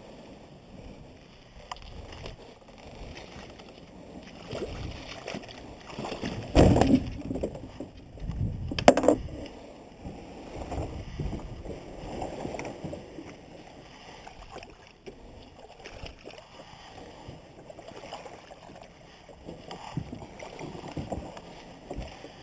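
Plastic kayak being handled and boarded at a muddy, weedy bank: uneven rustling and scraping, with two loud thumps, one about a third of the way through and another a couple of seconds later.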